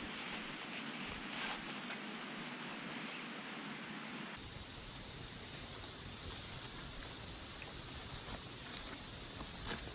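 Wood fire crackling and hissing, with scattered sharp pops that grow more frequent toward the end. A steady low rumble joins suddenly about four seconds in.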